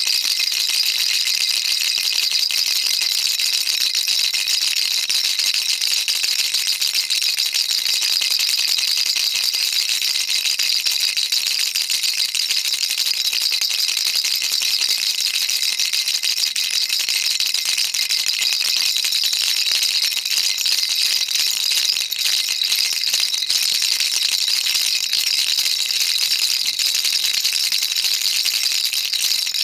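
Baby rattle shaken continuously: a dense, steady rattling of many small beads with no break.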